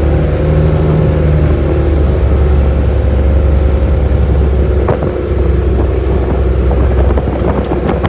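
Boat engine running steadily under way, a loud low drone, with water rushing past the hull in rough seas. A few sharp knocks come about five seconds in and again near the end.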